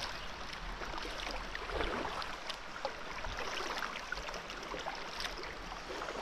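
Water moving around a kayak on a flowing river, a steady rushing hiss broken by many small irregular splashes and trickles.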